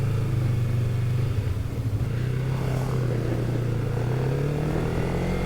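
Motorcycle engine running steadily under way, its pitch rising slightly near the end as it picks up speed.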